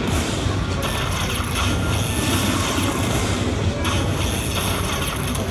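Slot machine playing its free-games bonus music and win-tally sounds while the bonus total counts up, over steady casino floor noise.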